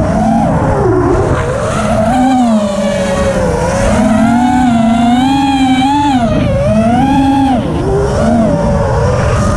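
Brushless motors and propellers of a 5-inch FPV racing quadcopter (ImpulseRC Reverb with Mr. Steele Silk V2 motors), heard from a camera on the quad itself, whining with a pitch that rises and falls with the throttle. The pitch dips sharply about a second in and again near eight seconds as the pilot chops throttle, with rushing air behind it.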